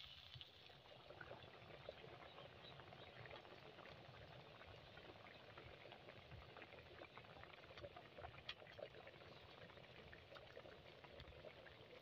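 Curry simmering in a wok: a faint, steady crackle of many small bubbles popping.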